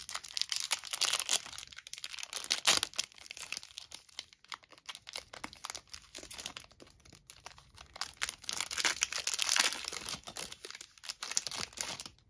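Foil Yu-Gi-Oh! booster pack wrapper being torn open and crinkled by hand, in bursts of crinkling that are loudest in the first few seconds and again about eight seconds in.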